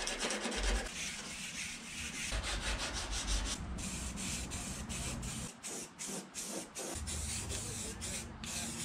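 Rapid rubbing strokes on a steel car fender, then an aerosol spray can of grey primer hissing in many short bursts, starting and stopping from a few seconds in.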